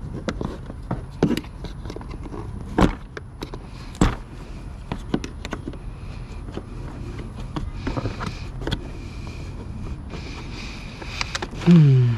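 ATV parts being worked loose by hand: scattered clicks, scrapes and knocks, with two sharper knocks about three and four seconds in.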